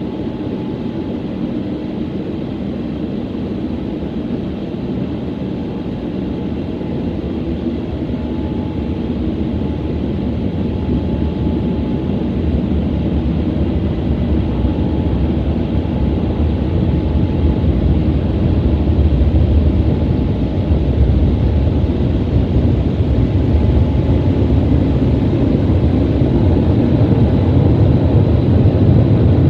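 Car wash gantry's drying blowers running, a steady rushing blast heard from inside the car that grows gradually louder, with a faint steady whine on top.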